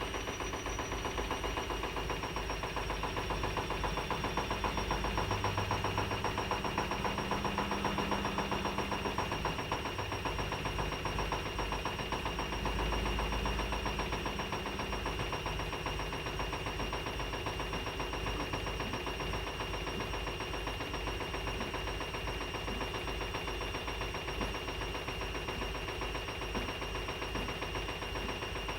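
Privileg 9515 Sensation washing machine on its 900 rpm spin, the motor holding a steady high whine over a rapid, even knocking from inside the machine. The knock comes only with laundry in the drum; the drum has no play, and the cause is unknown to the owner.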